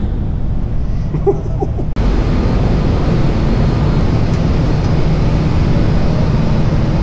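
Steady, loud roar of machinery and ventilation in a vinyl-film factory hall. It starts abruptly about two seconds in, after a lower rumble.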